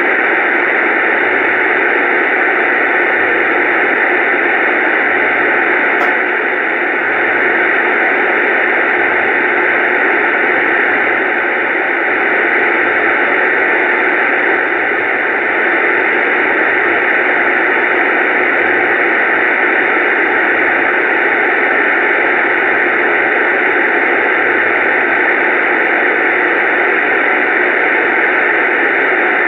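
Steady, loud static hiss with no voice or music in it, like a radio or audio feed carrying only noise.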